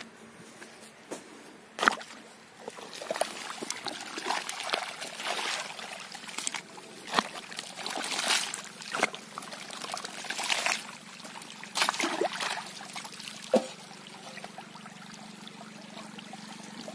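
Muddy irrigation water gushing and splashing through a gap cut in the earthen ridge of a flooded wheat plot, draining the excess water off. A few sharp knocks of the spade blade in the wet soil stand out over the water.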